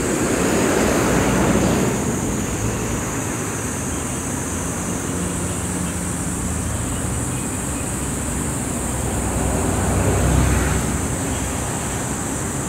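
Automatic gantry car wash running: a steady low machine hum under a continuous rushing hiss of water spray and brushes, swelling about ten seconds in. Road traffic swells and fades near the start.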